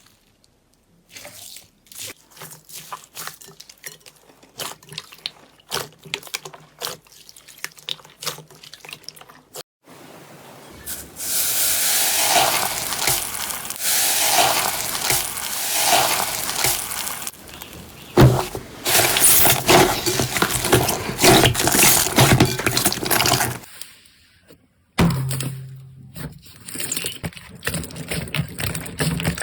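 Slime being squished, pressed and stretched by hand. The first stretch is a string of small crackles and pops, then from about ten seconds in comes a louder, continuous wet squelching hiss that swells and falls every second or two, and near the end short clicky squishes return.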